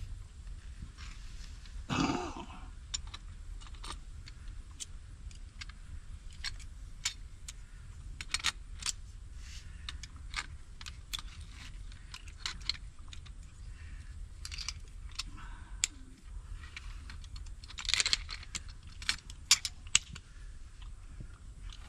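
Scattered small clicks and clinks of hand work, with a louder scrape about two seconds in and a quick flurry of clicks near the end, over a low steady rumble.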